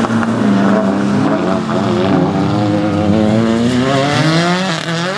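Rally car engine running hard under load, its pitch wavering and then rising steadily over the last couple of seconds as the car accelerates.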